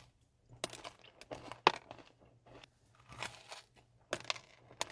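Close-miked biting and chewing of a cookie: a run of irregular, crumbly crunches and mouth sounds.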